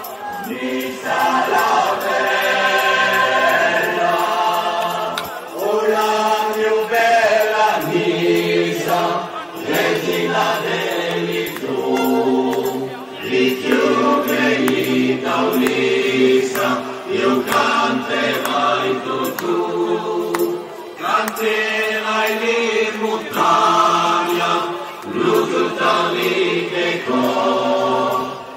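A crowd of many voices singing together in unison, in phrases of a few seconds with short pauses between them.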